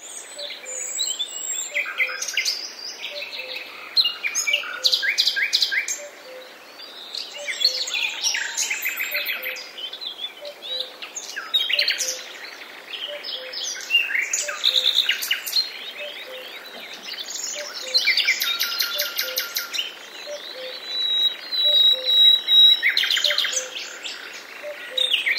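Several birds singing and chirping, with rapid trills and quickly repeated notes that overlap and alternate.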